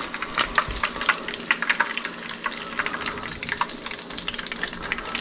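Hot oil sizzling and crackling in a frying pan used to brown bluefish cakes, a steady hiss with many small pops throughout.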